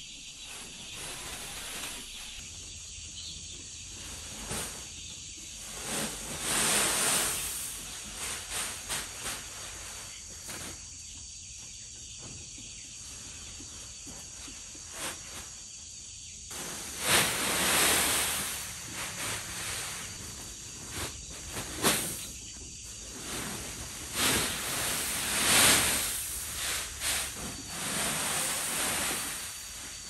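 Dry rice husks pouring out of sacks onto a concrete floor: several long hissing rushes. Under them runs a steady high chirring of insects.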